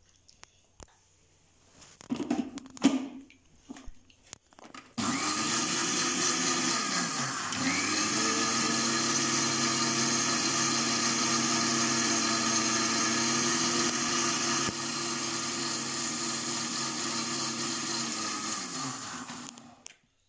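Kitchen mixer-grinder (mixie) churning milk cream into butter in its steel jar. After a few knocks as the jar is set in place, the motor starts about five seconds in and runs steadily, slowing and picking up once soon after starting, then winds down shortly before the end.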